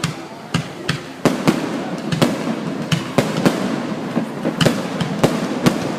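Aerial fireworks bursting in a rapid, irregular run of sharp bangs, one or two a second, over a continuous rumble of booms and crackle.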